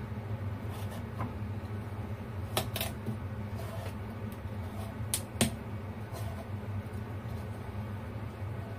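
Pumpkin flesh being scraped out of a whole pumpkin, with a few sharp clicks and taps of the utensil against the shell over a steady low hum.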